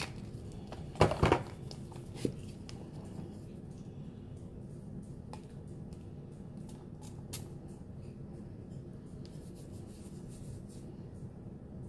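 Small clicks and handling noises from a perfume sample vial and its cap being worked in the hands, over a quiet steady room hum. A louder double knock comes about a second in, and a short click just after two seconds.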